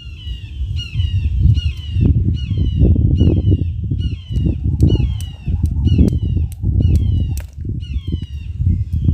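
Jump rope being skipped on concrete: the rope slaps the pavement in sharp clicks about once or twice a second over heavy low thumps. A short high chirp that dips in pitch repeats about twice a second throughout.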